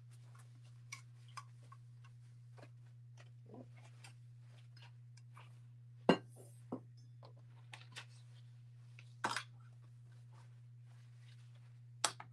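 Light clicks and clinks of a stainless sublimation tumbler and craft supplies being handled on a bench, with two sharper knocks about six and nine seconds in, over a steady low hum.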